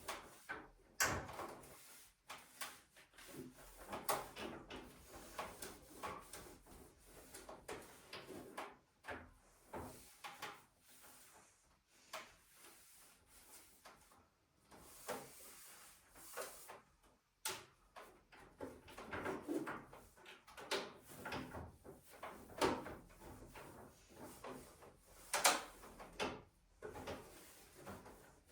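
Room being tidied by hand: irregular light knocks, bumps and short sliding and rubbing sounds as things are picked up, moved and put away, with furniture such as drawers being opened and closed.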